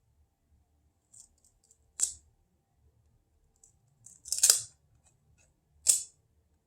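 Handling of a pack of trading cards: three short, sharp swishes of card stock and wrapper, the longest and loudest about four and a half seconds in.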